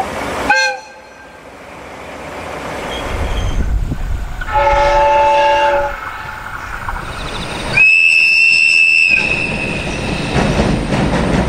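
Japanese trains sounding their horns over the rumble of passing trains: a short blast cut off abruptly about half a second in, a horn chord lasting about a second near the middle, then a high-pitched whistle lasting just over a second about eight seconds in.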